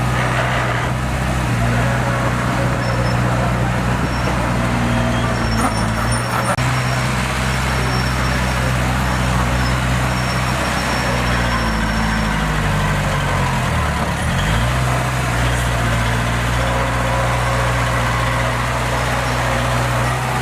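Diesel engine of heavy earthmoving machinery running steadily under work. A little past halfway its pitch sags and glides down, then picks back up.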